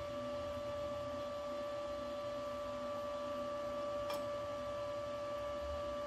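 Steady electrical hum made of a few fixed tones, with a single short click about four seconds in.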